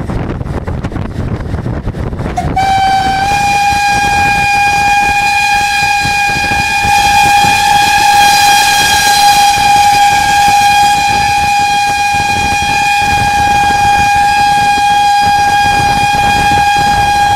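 Steam locomotive's whistle blown in one long, steady blast of a single pitch, starting a few seconds in and held for about fifteen seconds, heard close up from the locomotive over the rumble and wind of the train running.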